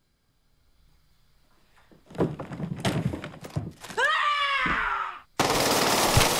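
Movie sound effects: thuds and scuffling about two seconds in, then a woman's scream that falls in pitch, followed by a loud burst of gunfire near the end.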